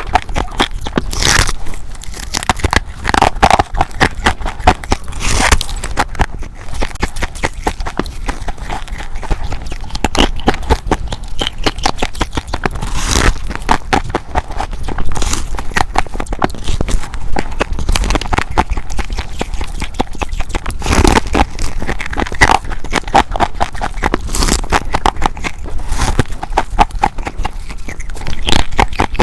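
Close-miked biting and chewing of humidifier ice: dense, crackly crunching with a louder bite every few seconds.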